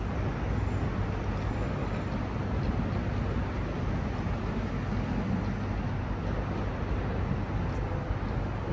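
Steady background rumble and hum of a large railway station hall, even throughout with no distinct events.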